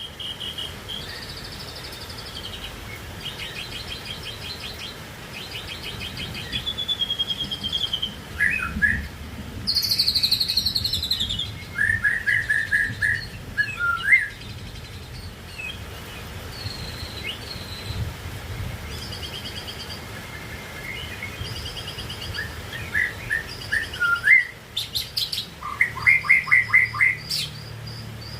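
White-rumped shama (murai batu) singing a varied string of separate phrases: clear whistles, quick trills and fast runs of repeated chattering notes.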